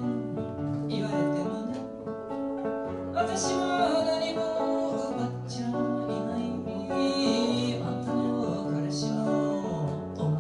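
Acoustic guitar played with a woman singing over it, a song performed live.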